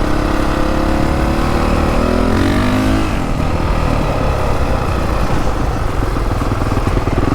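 Motorcycle engine running while being ridden, its pitch rising briefly about two to three seconds in and then falling away, over a steady low rumble.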